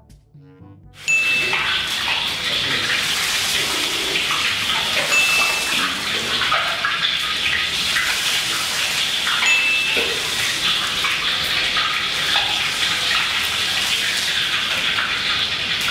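Hot oil ladled over a whole chicken hanging above a wok, sizzling and splashing as it streams off the skin back into the pan. It starts suddenly about a second in and runs on steadily.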